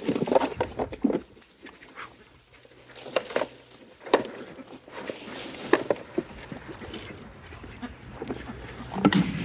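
Farm animals, chickens and ducks, calling and moving around at feeding time, with scattered short knocks and rustles.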